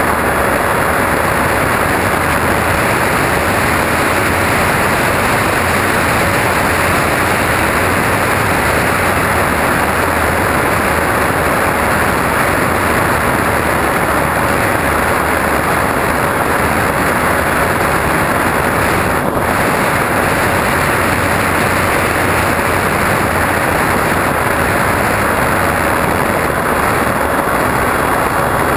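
Radio-controlled airplane in flight, heard from its onboard camera: a steady rush of airflow over the microphone with a constant hum from the plane's motor and propeller.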